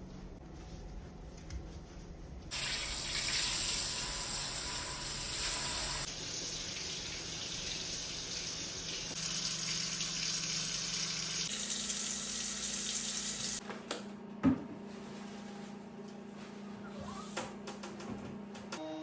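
Water tap running into a sink. It turns on suddenly, changes flow a few times and shuts off, followed by a single sharp knock.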